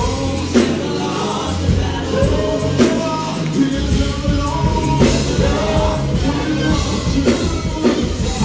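Live gospel worship music: a lead singer and backing vocalists singing into microphones over band accompaniment with a steady beat.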